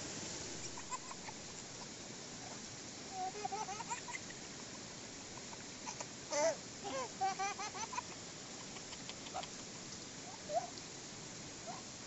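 A small child laughing and babbling in short high-pitched bursts, loudest about halfway through, over a steady rushing background noise.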